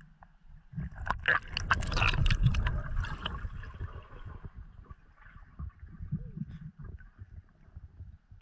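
Underwater water movement and bubbling heard through a GoPro's underwater housing: a loud burst of crackling bubbles for the first few seconds, easing into low, muffled swirling with scattered small clicks.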